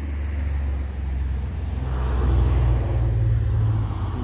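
A motor vehicle's engine rumbling, low and steady in pitch, growing louder to its peak two to three seconds in and then easing off slightly.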